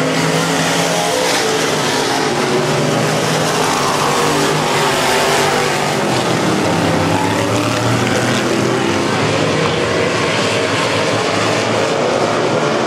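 A pack of dirt-track race cars racing, with several engines running at once. Their pitch rises and falls as the cars go through the turns and pass by.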